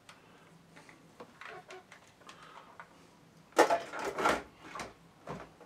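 A multimeter and its test leads being moved aside on a workbench. There are light clicks and rustling, then a louder spell of clattering handling about three and a half seconds in, and one more knock near the end.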